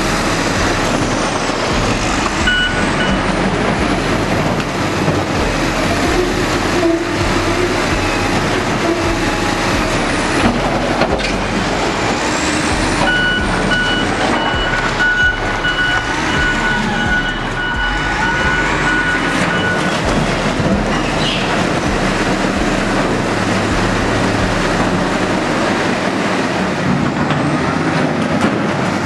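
Wheel loader's diesel engine running under load as its bucket pushes through concrete walls, with concrete breaking and rubble falling. A reversing alarm beeps briefly a couple of seconds in and again for several seconds mid-way.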